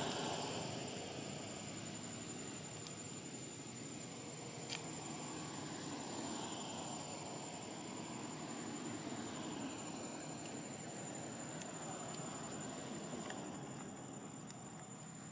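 Insects droning outdoors, one steady high-pitched tone held throughout over a soft background hiss, with a couple of faint clicks.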